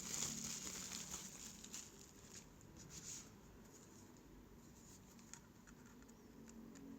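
Plastic bubble wrap being unwrapped from a lens, crinkling and rustling over the first three seconds, then quieter, with a few faint handling clicks.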